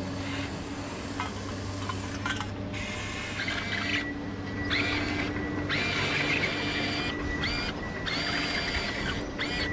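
Huina RC excavator's electric drive motors and gearboxes whining in a series of short start-stop bursts, each spinning up with a rising tone, as the tracks drive and turn the machine. A low steady hum runs underneath.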